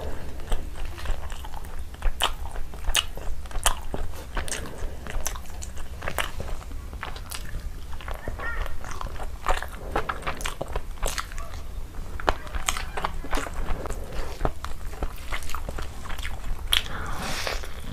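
A person chewing and biting pieces of chicken curry, with many quick, irregular wet clicks and crunches from the mouth, over a steady low hum.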